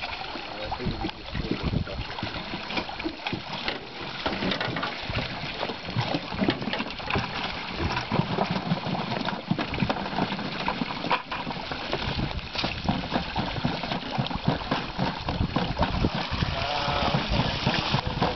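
Water splashing and churning as a dense mass of yellow perch crowded in a Merwin trap net thrashes at the surface, with dip nets scooping them out and water pouring off the nets.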